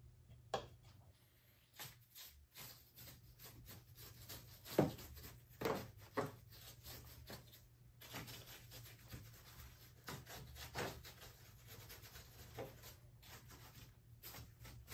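Cheap 1-inch disposable paint brush scrubbing stain into a rough plaster rock face in quick short strokes. The scratchy rubbing comes in bursts, with a few louder strokes about five to six seconds in.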